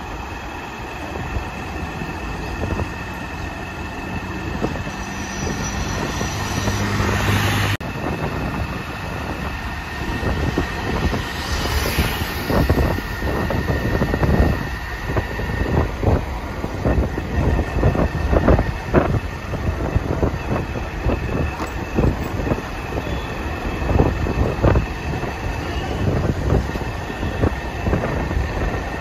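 Road vehicle noise with wind buffeting the microphone, and irregular knocks and thuds throughout. The sound changes abruptly about eight seconds in.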